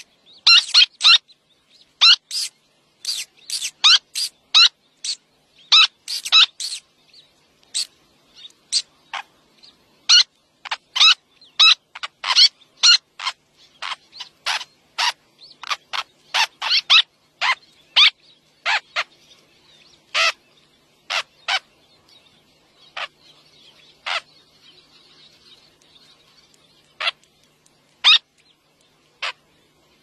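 Small terns calling: short, sharp, high-pitched chirps repeated irregularly, coming thick and fast at first and thinning out to occasional single calls after about twenty seconds.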